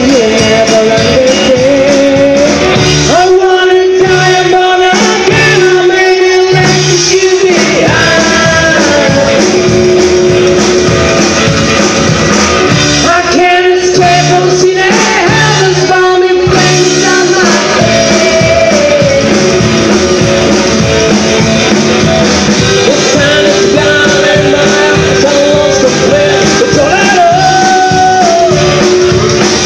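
Live rock band playing loudly: drums and electric guitar, with a voice singing over them.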